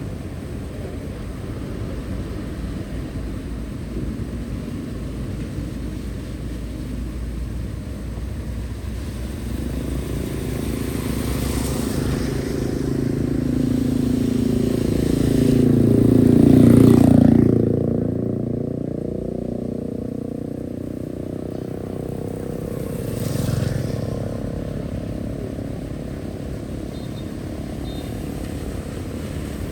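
A motor vehicle passes close by, growing louder to a peak about seventeen seconds in and then fading, with a second, quieter pass-by about twenty-three seconds in, over a steady low rushing background.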